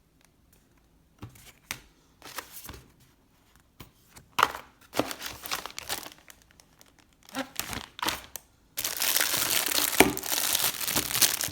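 Gift packaging being unwrapped: scattered crinkles and rustles at first, then from about nine seconds in a dense, continuous crinkling and tearing that is louder.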